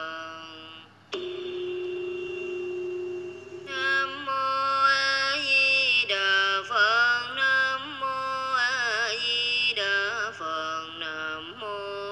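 A woman's voice chanting a Vietnamese Buddhist recitation in a slow, melodic sung style. About a second in, a single note starts sharply and holds steady for a couple of seconds, then the gliding, ornamented chant resumes.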